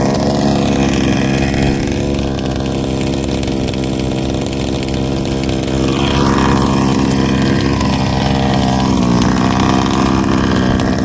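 Small two-stroke petrol engine of a 1/5-scale RC Baja buggy running steadily at low revs, with its pitch shifting slightly around six seconds and again around nine seconds.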